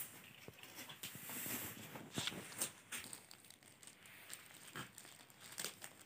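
Packaging being handled: faint, irregular rustling and crinkling of paper and a bag, with scattered small clicks.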